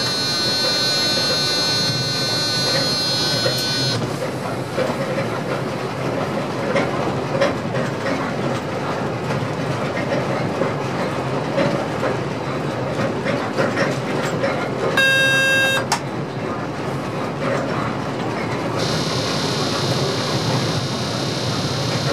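Passenger train running, heard inside the driver's cab: a steady rumble with wheel and rail noise. A held electronic tone sounds for the first four seconds and again briefly about fifteen seconds in, and a hiss joins near the end.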